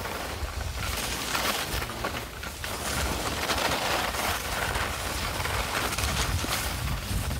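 Skis scraping and hissing over groomed snow in swishes that swell and fade, with wind buffeting the microphone in a steady low rumble.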